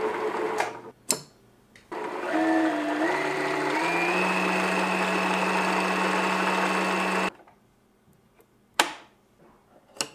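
Necchi C35 sewing machine's motor driving the bobbin winder, with the needle drive disengaged, while a bobbin fills. It runs, stops for about a second, then starts again and picks up speed in steps before cutting off suddenly about seven seconds in. A click follows, then a short snip near the end as scissors cut the thread.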